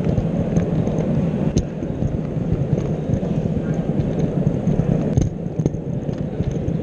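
O gauge model locomotive running along its track, heard through a camera mounted on its bufferbeam: a steady low rumble of motor and wheels with a few sharp clicks.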